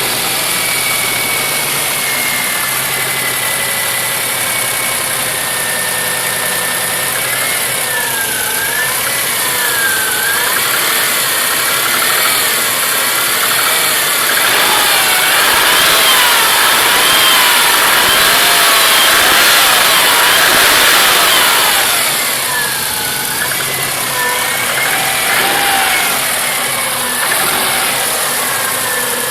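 Subaru Impreza's EJ20 flat-four engine running on a cold start, with a knocking sound that the owner fears could mean failing rods. The engine gets louder around the middle, then settles back.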